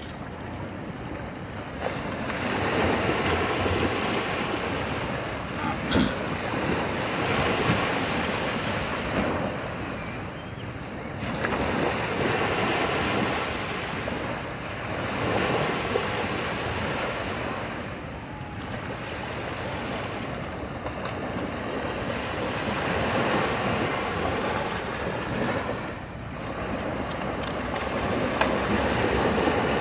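Surf breaking and washing on a beach, swelling and fading in surges every few seconds, with wind buffeting the microphone.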